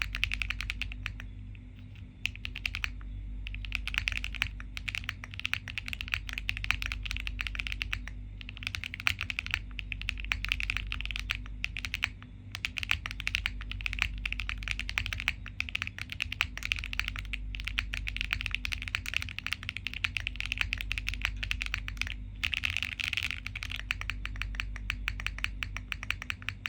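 Continuous typing on a QK60 60% mechanical keyboard with HMX Ziwei switches: a dense run of keystroke clacks with brief pauses now and then.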